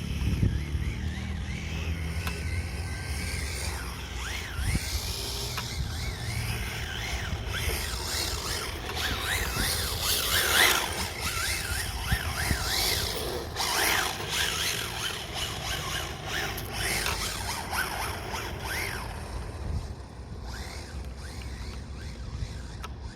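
Radio-controlled car being driven, its motor whining rapidly up and down in pitch as the throttle is blipped, with a louder rush of noise about ten seconds in. Wind buffets the microphone at the start.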